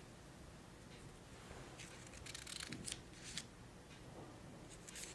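Sheets of paper being handled and slid across a desktop: faint, short rustles and scrapes, a cluster about two seconds in and more near the end.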